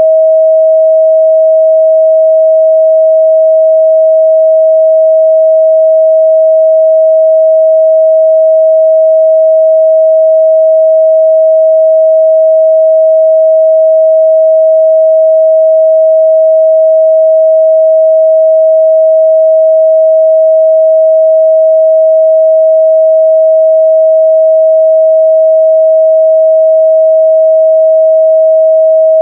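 A steady, loud 638 Hz sine-wave test tone, one pure pitch held without change.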